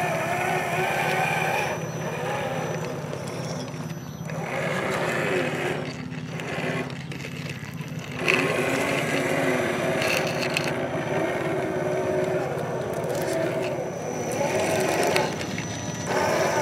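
RC4WD Trail Finder 2 scale crawler's electric motor and gearbox whining as it crawls over dirt, the whine rising and falling in pitch with the throttle and stopping briefly a few times.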